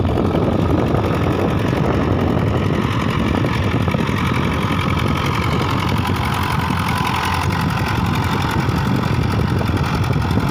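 HMT 5911 tractor's diesel engine running steadily under load while it pulls a three-bottom MB mouldboard plough through the soil.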